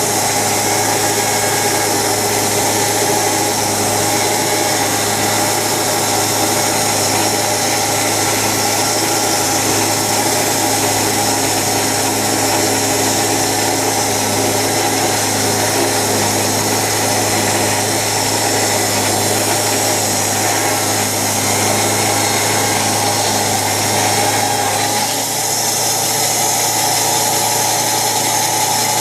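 Timber Harvester band sawmill running steadily under engine power while making a pass through a log.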